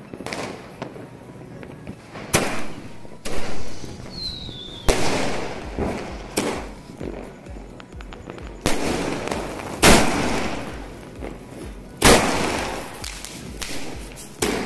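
AONE Super 60 Shots multi-shot firework cake firing: about eight sharp bangs, one to two and a half seconds apart, each with a long echoing tail. A brief falling whistle sounds about four seconds in.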